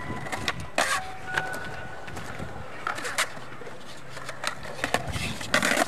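Skateboard on concrete: sharp clacks of the tail popping and the wheels landing about a second in, around three seconds and several close together near the end, with wheel noise rolling between them.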